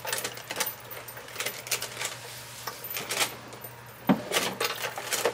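Rustling and small clicks and taps as baby wipes are pulled from their pack and used to wipe off texture paste, with a sharper knock about four seconds in.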